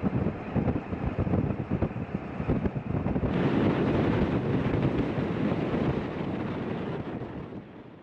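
Wind buffeting a microphone mounted outside a moving pickup truck, with road noise from the drive. The sound changes a little after three seconds in and fades out at the end.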